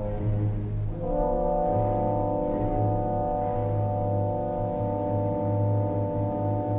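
Orchestral music from the opera score: brass holding slow, sustained chords, a new chord entering about a second in and held, over a low pulsing rumble.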